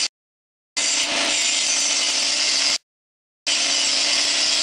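Angle grinder cutting steel: a loud, steady, high-pitched grinding hiss. It cuts out abruptly to dead silence twice, each time for under a second.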